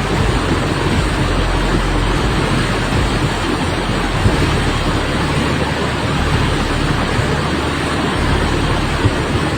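Heavy rain pouring steadily, with a low rumbling noise underneath.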